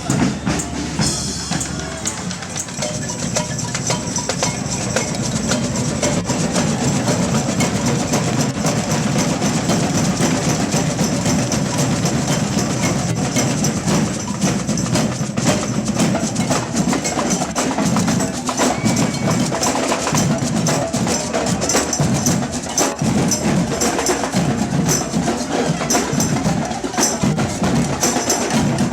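Marching band percussion playing a fast, steady beat: drums with sharp, woody clicks throughout.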